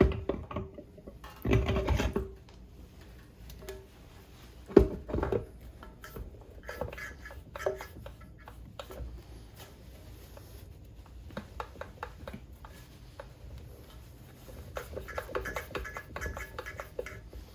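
Torque converter being turned and pushed onto a 4L60E transmission: scattered metal clunks and clicks, the loudest about two and five seconds in, with a run of small rattling clicks near the end as it works its way in.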